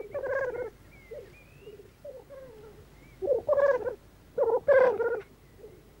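Male black grouse (blackcocks) giving their bubbling, rapidly pulsed rookooing display calls on a lek. Three loud bursts come at the start, around three seconds in and again just after, with fainter calls and thin whistled notes between.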